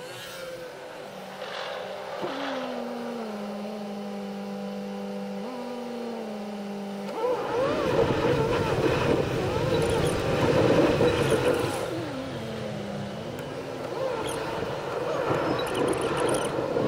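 Car cabin sound while driving in city traffic: a quiet steady engine hum at first, then louder engine and road noise as the car pulls away and picks up speed about seven seconds in.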